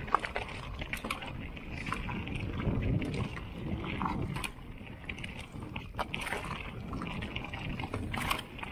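Mountain bike rolling fast down a rocky, gravelly singletrack: a steady rumble of tyres over loose stone, with sharp knocks and rattles from the bike now and then.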